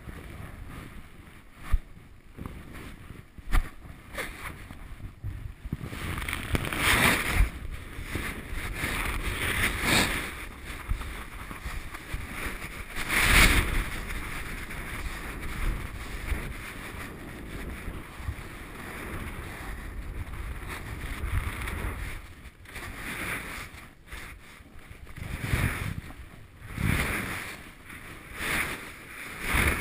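Rushing wind and snow noise on a helmet-mounted camera, swelling several times into louder swishes, the loudest about thirteen seconds in, with a quick run of them near the end.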